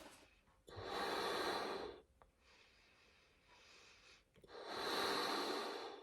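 A person blowing up a balloon by mouth: two long, forceful breaths into it, with quieter breathing between them.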